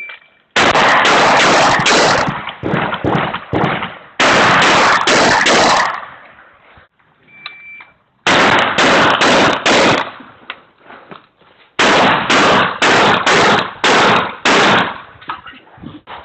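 Shot-timer start beep, then a 12-gauge shotgun fired in four rapid strings of several shots a second, with short pauses between strings as the shooter moves between targets.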